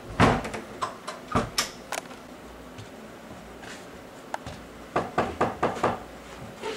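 Sharp knocks and thuds: several scattered ones in the first two seconds, then a quick run of about six in a row about five seconds in.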